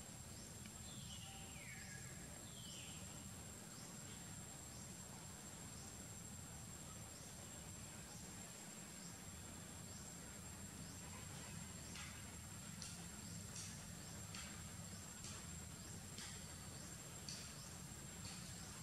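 Faint forest ambience: a steady high-pitched insect drone, with a few short falling chirps in the first three seconds and scattered short chirps in the second half, over a low rumble.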